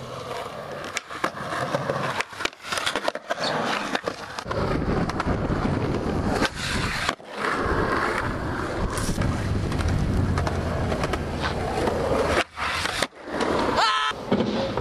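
Skateboard wheels rolling over rough asphalt: a continuous grinding rumble with scattered clicks and knocks, broken by a few brief gaps.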